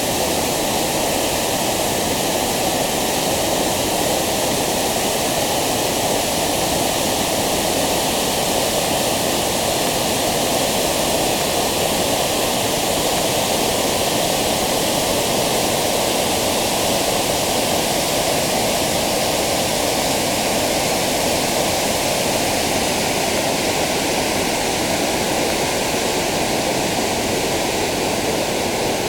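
Waterfall: a steady, loud rush of falling water, unchanging throughout.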